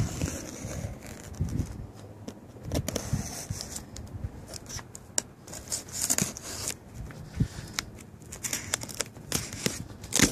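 Knife blade cutting through packing tape and cardboard on a shipping box, with tape tearing and cardboard scraping in irregular clicks and scrapes.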